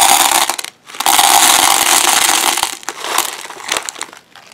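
Hard wax beads pouring from a foil bag into the metal inner pot of a wax warmer. The rattle breaks off briefly just under a second in, pours again for about two seconds, then trails off into scattered clicks of single beads.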